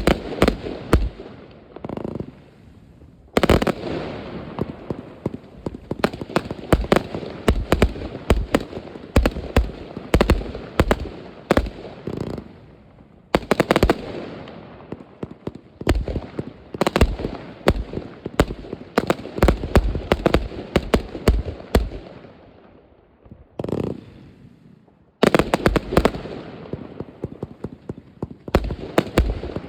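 New Year's Eve fireworks: rapid volleys of crackling bangs and pops from cakes and firecrackers, coming in runs of several seconds with short lulls between them.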